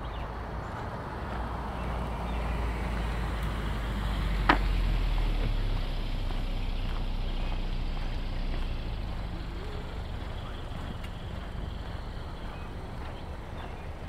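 A motor vehicle driving past on the street: its engine and tyre noise swells to a peak about five seconds in, then slowly fades away. One sharp click comes near the loudest point.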